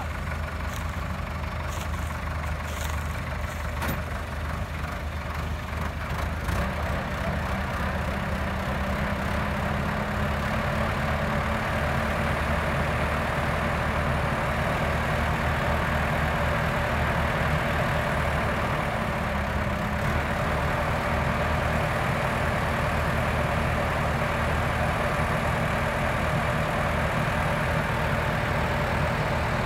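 Yanmar HS 2000 sugarcane harvester's engine running steadily. About six seconds in, a low steady hum comes in and the sound grows slightly louder.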